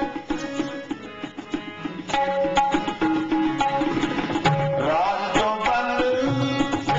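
Sikh kirtan: harmoniums holding chords under a quick tabla rhythm, with voices joining in singing from about halfway.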